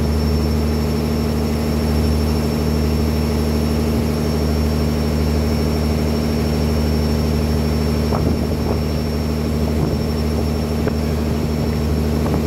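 Engine of a small motorboat running steadily under way, an unbroken low drone with a thin high whine above it.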